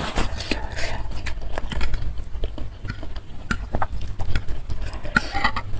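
Close-miked chewing and wet mouth smacking while eating instant noodles in spicy soup, with irregular clicks and short wet smears of sound.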